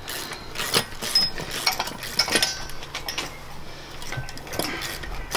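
Ratchet wrench with a 17 mm socket clicking, along with metal tools clinking, as the top mount nut is run down onto a coilover strut. The clicks come irregularly, several a second.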